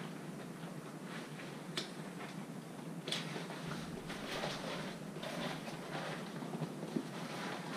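Nylon straps and fabric of an inflatable life jacket rustling as it is handled and lifted, with a few sharp clicks, over a low steady hum.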